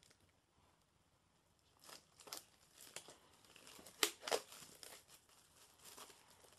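Clear plastic shrink wrap being torn and peeled off a Blu-ray steelbook case: irregular crinkling and crackling that starts about two seconds in and is sharpest around four seconds in.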